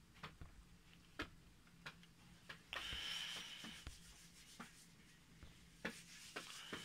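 Faint handling noise from a small reflector telescope's tube being turned in the hands: scattered light clicks and taps, with a short stretch of rubbing about three seconds in.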